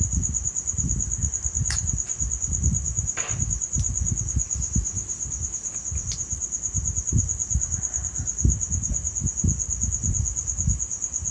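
A cricket trilling without a break, one high, steady, rapidly pulsing tone, over a low rumble, with a couple of faint clicks in the first few seconds.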